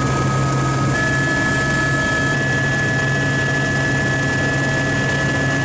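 Helicopter engine and rotor noise: a steady low drone with a constant high whine over it. The whine's pitch shifts abruptly about a second in.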